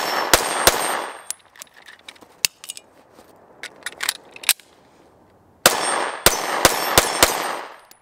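SCCY DVG-1 9mm pistol fired rapidly: three shots about a third of a second apart at the start, then small metallic clicks and clacks of a magazine change, then five more quick shots near the end.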